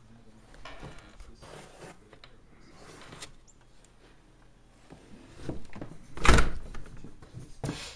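A house door being moved and knocked, with a few soft swishes, then a loud thud about six seconds in and another knock near the end.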